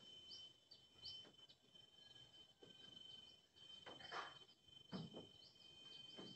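Faint outdoor ambience: an insect's steady high-pitched drone, with scattered short bird chirps over it.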